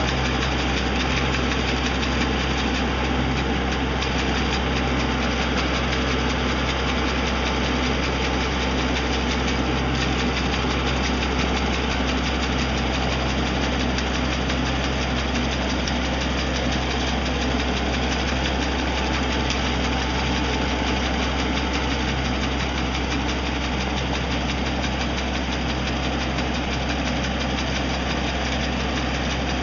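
Tractor engine running steadily, powering the hydraulic brush trimmer as it cuts through spruce branches.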